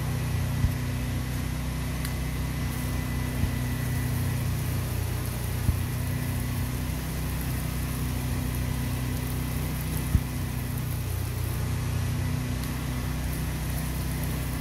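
Pressure washer's engine running steadily while water sprays from a wand on an extension pole, with a few light clicks, the sharpest about ten seconds in.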